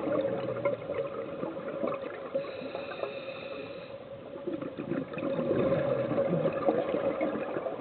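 Scuba divers' exhaled air bubbling and rushing, heard underwater, with a steady hum underneath; the bubbling swells about five seconds in.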